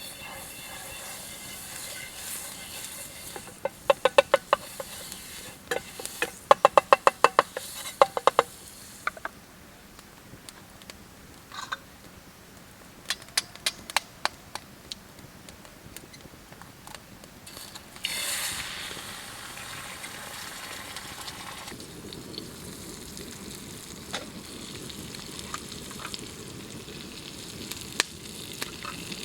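Food frying in a pan with a steady sizzle. A utensil stirs and scrapes against the pan in quick rattling runs of clinks during the first several seconds. A sudden louder hiss comes about two-thirds of the way through.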